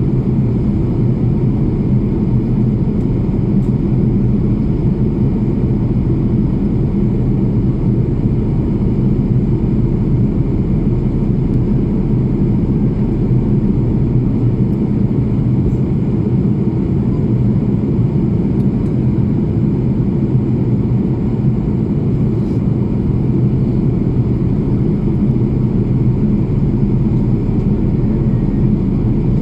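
Airplane engine drone, a loud, steady low hum that does not rise or fall.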